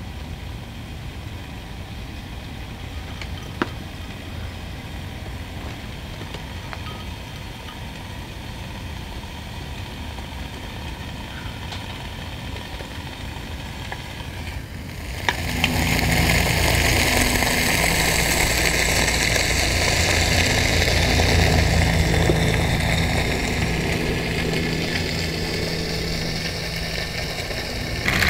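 Low rumbling background at first; about halfway through, a louder steady sound begins: a gas stove burner hissing under a hot sandwich maker while the food inside sizzles, over a low steady hum.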